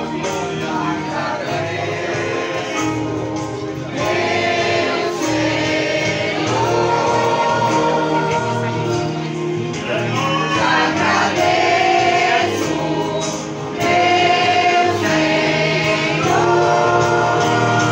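A choir of mixed voices singing a hymn together, accompanied by acoustic guitar.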